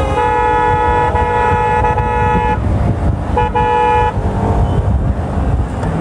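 A vehicle horn honking in traffic: one long blast of about two and a half seconds, then a short one about a second later. Underneath runs a steady low traffic rumble.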